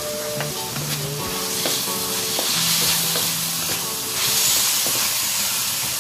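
Chopped meat frying in a wok with a steady sizzle, stirred and scraped with a wooden spatula. The sizzle swells about two and a half seconds in and again a little past four seconds.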